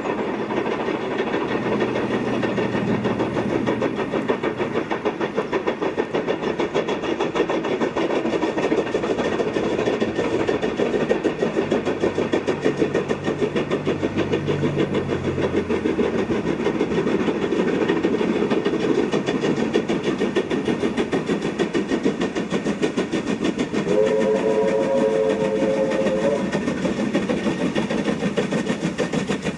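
Two S160 2-8-0 steam locomotives working hard up a steep bank, their exhaust beats coming fast and overlapping in a steady chuffing. A chime whistle sounds for about two seconds near the end.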